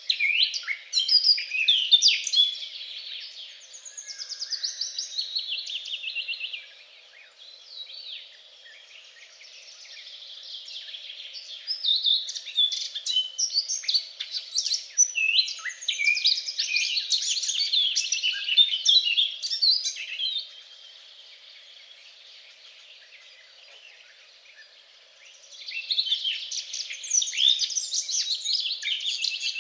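Songbirds singing: rapid chirps and trills from several birds overlapping, in loud spells broken by two quieter lulls, around a quarter of the way in and again about two-thirds of the way through.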